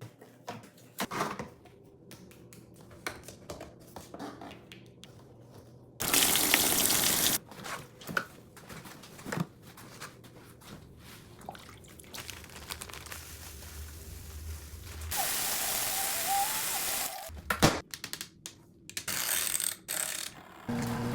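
Water running from a tap in two spells, most likely filling a compact washing machine's tub, with clicks and knocks of handling in between and a low hum shortly before the second spell.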